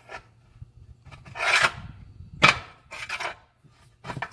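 Tire iron scraping and prying between a rear tractor tire's bead and the steel rim as the bead is worked off. Several separate scrapes, the sharpest about two and a half seconds in.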